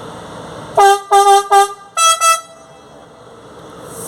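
Train horn sounding three short blasts on one low note, then two quick blasts on a higher note.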